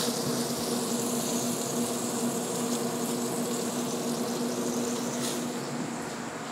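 Pit Boss pellet smoker's fan running with a steady electric hum, just after the grill has been switched off and is running on in its shutdown cycle.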